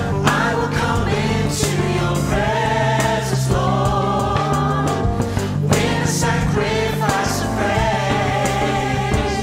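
Gospel vocal group singing in harmony, backed by a band of drums, electric bass and keyboard.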